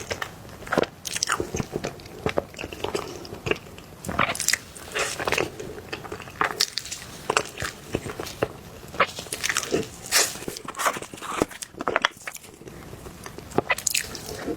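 Soft cake being bitten and chewed close to the microphone: irregular wet mouth clicks and smacks, several a second.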